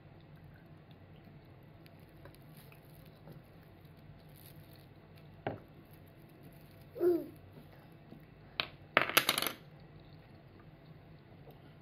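Quiet tableware sounds at a meal: a single tap about halfway, a short pitched sound a moment later, then a quick rattle of clinks near the end, the loudest sound, as dishes and cutlery are handled on the table.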